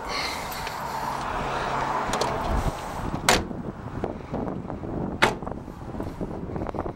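Two sharp knocks about two seconds apart from a Toyota Land Cruiser Prado's rear door being worked open and shut, after a rushing noise in the first three seconds.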